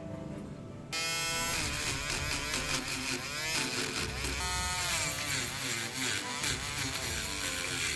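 Mini rotary grinder with a sanding band drum starting up about a second in and sanding an aluminium waffle pan, its high motor whine dipping and rising as it bears on the metal. Quieter background music comes before it starts.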